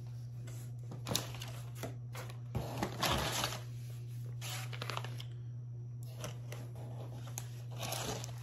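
Packaging being handled while a shipping box is unpacked: scattered rustling, crinkling and light knocks, the busiest stretch about three seconds in, over a steady low hum.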